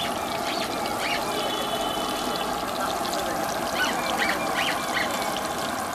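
Hot oil sizzling steadily as batter fritters deep-fry in a wide pan and are stirred with a metal spatula. Over it come several short high-pitched calls and one held high tone for about a second, early on.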